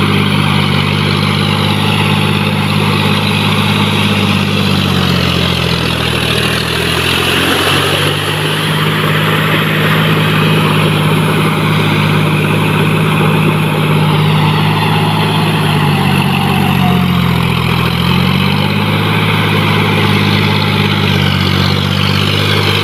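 John Deere 5045D tractor's three-cylinder diesel engine running steadily under load as it drives cage wheels through a flooded paddy field. Its pitch dips lower twice, about five seconds in and again past halfway, then picks back up.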